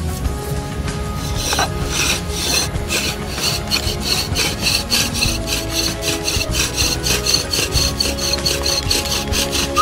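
Bow drill at work: a wooden spindle rubbed back and forth in a wooden hearth board, a rasping stroke about four times a second, starting about a second in.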